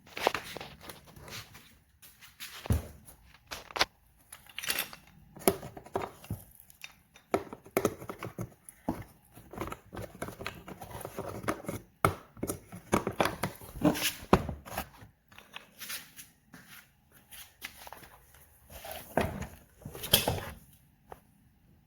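Handling noises: irregular clicks, knocks and rustling of objects being moved about, with no motor running.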